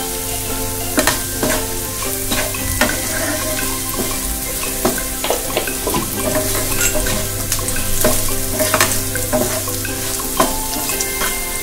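Wooden spatula stirring and scraping chopped onion, green chilli and curry leaves frying in oil in a pan, the food sizzling, with irregular scrapes and taps against the pan. A steady low hum runs underneath.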